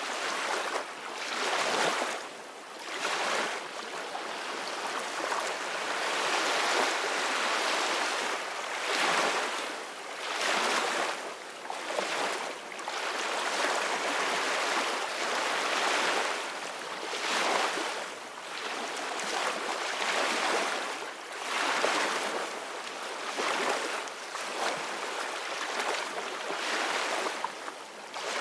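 Ocean waves washing on a shore: steady surf noise that swells and falls back irregularly, a surge every second or two.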